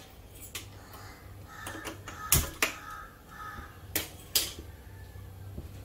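Gas stove knob being turned and its igniter clicking to light the burner: sharp clicks in two pairs, about two seconds in and again about four seconds in, over a faint steady hum.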